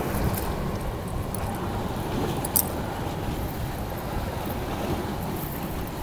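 Small waves washing onto a pebbly beach, with wind buffeting the microphone in a steady low rumble. A brief click about two and a half seconds in.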